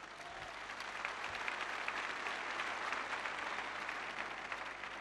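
Huge open-air crowd applauding: a dense wash of clapping that swells over the first couple of seconds, holds, then eases off.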